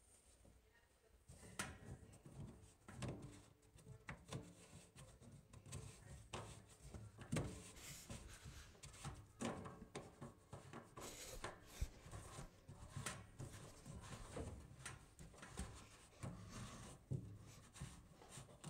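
Hands threading and tightening the plastic slip-joint nuts of a white PVC P-trap on a sink drain by hand: irregular plastic clicks, scrapes and rubbing, starting about a second in.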